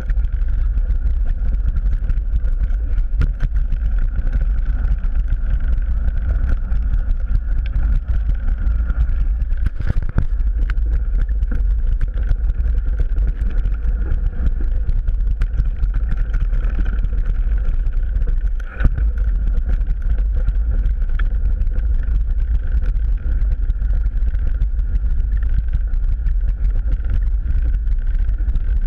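Wind buffeting and trail rumble from a mountain bike ridden fast over dry dirt and leaf litter, picked up by a camera mounted on the bike. The rumble is steady and loud, with a constant clatter of small knocks from the tyres and frame.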